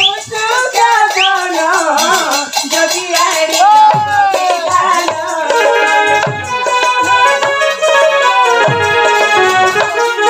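Odia folk dance music: a hand-beaten barrel drum under a reedy keyboard melody, with low drum strokes coming every couple of seconds.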